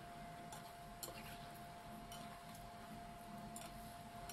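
Chicken wings simmering in sauce in a frying pan: faint, irregular small pops and ticks of bubbling, over a steady faint hum.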